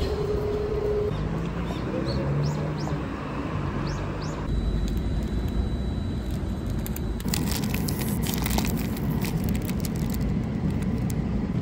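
Ambient location sound across several quick cuts. It starts as a steady hum with a held tone and short chirps, then turns to outdoor street noise. About seven seconds in comes a dense run of sharp crackles.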